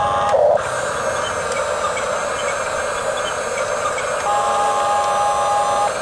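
Huina 1569 RC bulldozer's electric drive motors and gearboxes whining as it drives on its tracks, a steady mechanical drone with a higher pitched whine that stops about half a second in and comes back for over a second near the end.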